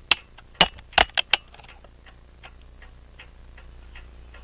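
French crystal regulator clock ticking evenly in beat from its open escapement with jewel-like pallets, about two and a half ticks a second. Several louder, irregular sharp clicks come in the first second and a half.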